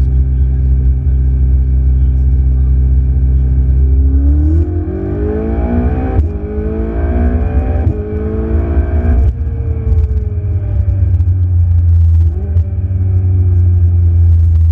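Ferrari 488 GTB's twin-turbo V8 running at a steady cruise, then accelerating about four seconds in with its note rising in steps as it shifts up. Near the middle it eases off and the pitch falls back to a low, steady run.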